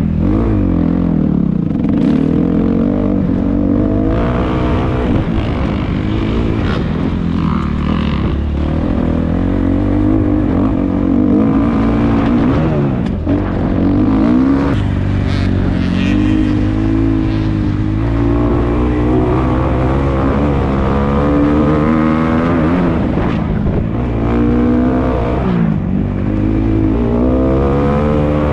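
Kawasaki KX250F motocross bike's single-cylinder four-stroke engine revving as it is ridden, its pitch climbing and dropping again every few seconds.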